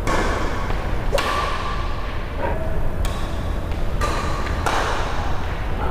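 Badminton rally: sharp racket strikes on a shuttlecock, about five in a few seconds at an uneven pace, each followed by a short echo off the hall walls.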